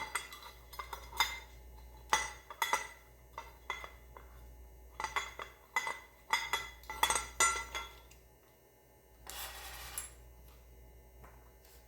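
Small metal screws and hardware clinking and rattling as they are picked up and handled, a run of irregular clinks, then a short rasping scrape about nine seconds in.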